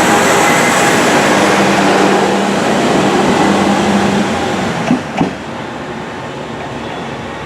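Tenryu-Hamanako Railroad diesel railcar running along the track, its engine drone and wheel-on-rail noise fading a little over four seconds in, with two short knocks about five seconds in.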